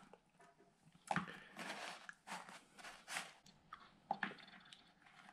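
Whole mackerel being laid by hand onto coarse salt in a plastic basin: faint crunching and scraping of the salt under the fish and fingers, several short scrapes over a few seconds.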